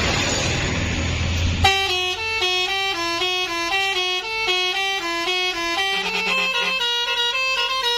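Basuri telolet multi-tone horn playing a quick melody of short stepped notes. It starts a little under two seconds in, after a steady hiss.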